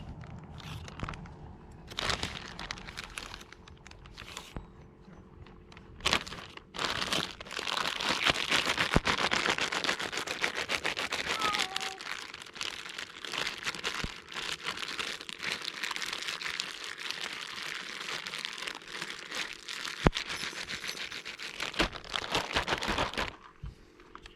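Plastic bag crinkling and rustling while crappie fillets are coated in egg wash: a few short bursts at first, then a long stretch of steady crinkling from about seven seconds in that stops suddenly near the end, with a single sharp knock along the way.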